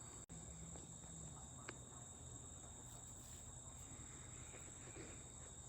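Faint, steady high-pitched drone of an outdoor insect chorus, with a brief drop-out of the audio about a third of a second in.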